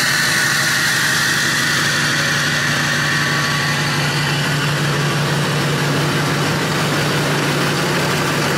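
Duramax 6.6 L V8 turbodiesel pickup engine idling steadily: an even low drone with a hiss over it, unchanging throughout.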